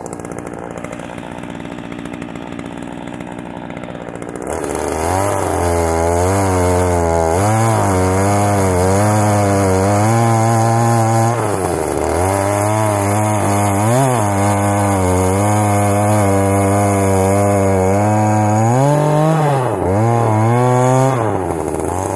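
Ryobi 14-inch chainsaw cutting through a stump flush with the ground. It runs quieter at first, then gets loud about four seconds in, its pitch wavering up and down as the chain bites and bogs in the wood, with brief dips twice.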